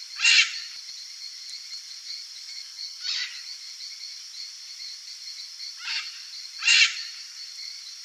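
Red-and-green macaws giving short, harsh squawks: four calls, the loudest just after the start and near the end. Behind them runs a steady high insect drone.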